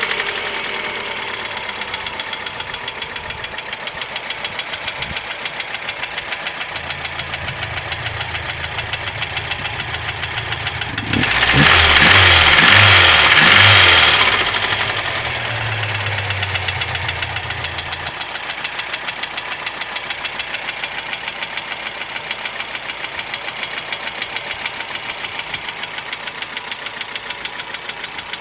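Chery Amulet car engine idling with a steady, rhythmic knock, revved briefly about eleven seconds in and dropping back to idle a few seconds later. The owner does not know the cause of the knock.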